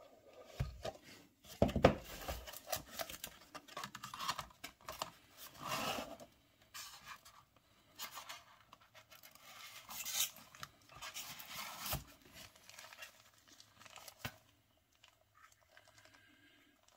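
Handling model-locomotive packaging: a cardboard box opened, a foam tray slid out and a plastic bag rustling. Irregular scratching and crinkling with a few sharp knocks.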